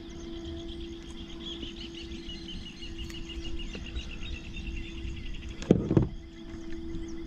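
Insects chirping in rapid high pulses over a steady low hum, with a sharp double knock a little before the end.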